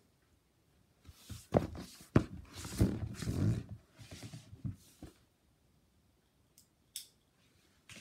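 Close handling noise of a person moving beside the microphone: clothes rustling and dull knocks for the first few seconds, then two short clicks near the end.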